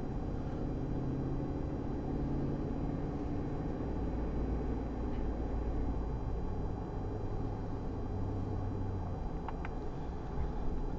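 Steady engine drone and road noise inside the cab of a 2003 Chevrolet Silverado pickup cruising on the road. The engine note shifts lower about halfway through. The tyre noise is low because the truck runs on new Michelin tyres.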